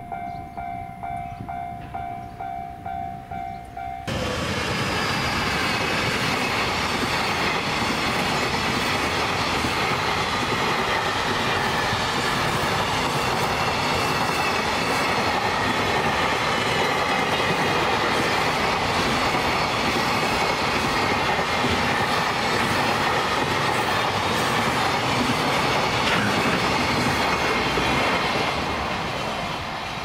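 A level-crossing bell rings in steady repeated dings. About four seconds in, a long freight train of hopper and container wagons comes through suddenly and rumbles and clatters past for over twenty seconds, drowning out the bell. The train noise fades near the end.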